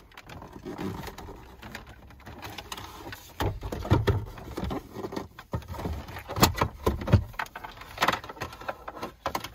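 Hands working inside a van's dashboard glove-box opening, handling plastic trim and USB cables: irregular knocks, clicks and rustles, with a few louder knocks in the second half.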